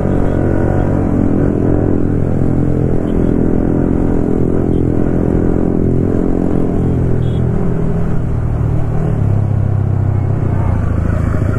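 Sport motorcycle's engine running steadily from the rider's seat at road speed, its pitch dropping in the second half as the bike slows.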